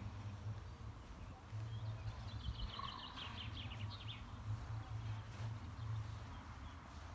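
A small bird sings a quick twittering phrase from about one and a half to four seconds in, over a low, uneven rumble.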